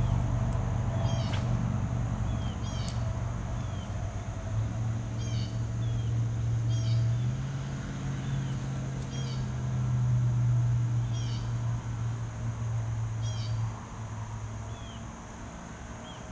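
An animal's short high calls, each with a quick downward hook, repeated about every one to two seconds over a low steady drone that drops away near the end.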